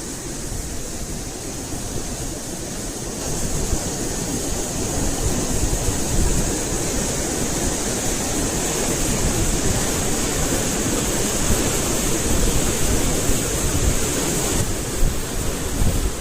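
Water pouring over a check-dam weir: a steady, full rush that grows louder about three seconds in, with a gusty low rumble of wind on the microphone.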